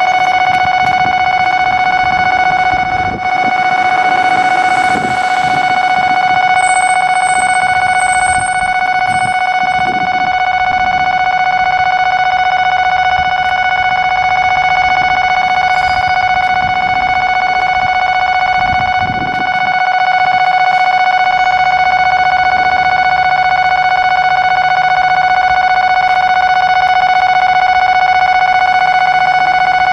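Railway level-crossing warning alarm sounding continuously, a steady high electronic tone.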